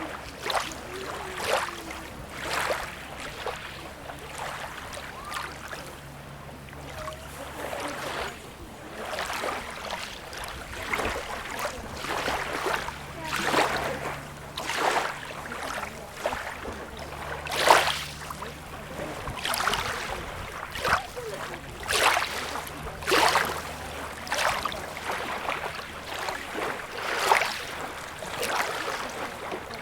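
Small waves lapping and splashing at the water's edge, in quick irregular splashes, over a low steady hum.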